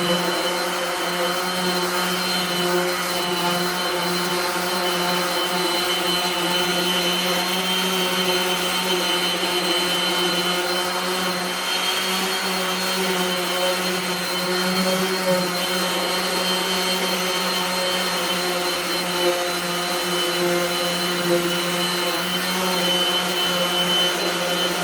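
Power sander running steadily with 400-grit paper on a Jeep hood, taking the clear coat down to a matte finish for paint prep. It makes a steady motor hum with a faint high whine.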